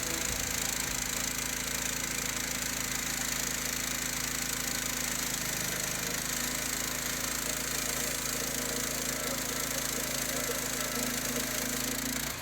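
Portable band sawmill running with its blade cutting through a log: a steady machine noise over a low, even hum. It cuts off abruptly at the end.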